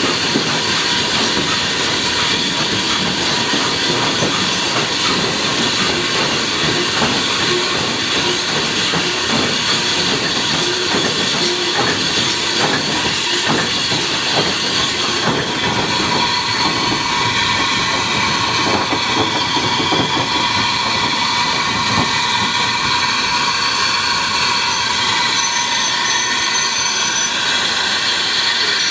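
Industrial saddle tank steam locomotive running, heard from on board: a steady hiss of steam over a fast patter of exhaust beats and wheel clatter on the rails.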